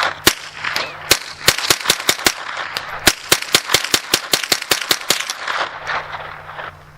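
Winchester Wildcat .22 LR semi-automatic rifle fired rapidly, about five shots a second in quick strings with short pauses, stopping about six seconds in.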